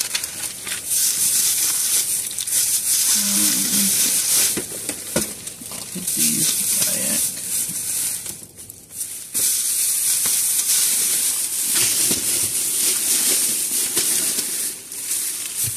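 Plastic shopping bag and plastic packaging rustling and crinkling as items are pulled out and handled, with short pauses between handfuls.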